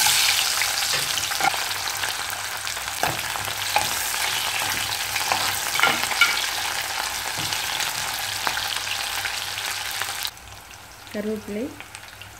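Halved shallots sizzling in hot sesame oil with spluttered spices and dried red chillies, starting loud as they hit the oil, with a spatula stirring them in the pan. The sizzle drops off suddenly about ten seconds in.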